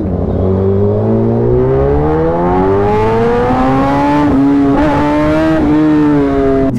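Kawasaki ZX-10R's inline-four engine accelerating hard, heard from the rider's seat. Its pitch climbs steadily for about four seconds, then levels off as the bike holds speed, with wind rushing over the microphone.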